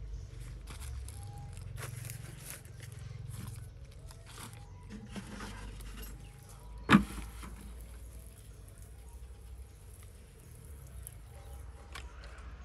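Handheld pump sprayer hissing briefly as it mists a potted cutting, over a steady low rumble and scattered small clicks. One sharp click about seven seconds in is the loudest sound.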